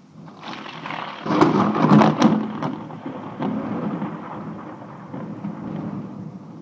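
Close thunder: a crackling crash builds about half a second in, peaks with several sharp cracks between one and two and a half seconds in, then rolls off into a long fading rumble.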